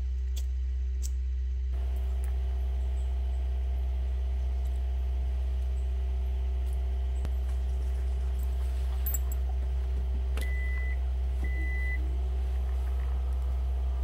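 Steady low rumble with two short, high electronic beeps about a second apart near the end.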